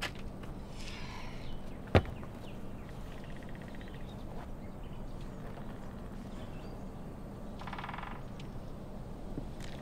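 Outdoor ambience with a steady low hum and faint bird calls, broken by one sharp knock about two seconds in.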